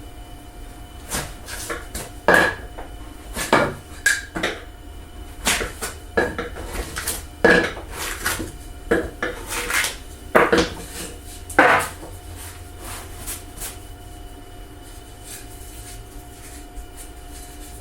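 Cut wooden pieces being handled and lifted off the CNC bed, knocking and clattering together in about a dozen irregular sharp knocks that stop near the end, over a low steady hum.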